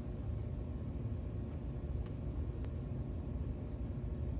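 Steady low rumble of background noise, with a couple of faint ticks about two seconds in and again a little later.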